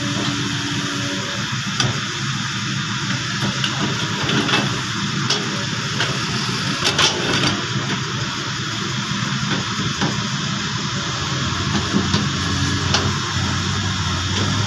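Kobelco SK200 hydraulic excavator's diesel engine running steadily under load as the machine digs, swings and scrapes earth, with a few sharp knocks and clatter from the bucket and dirt, the loudest about seven seconds in.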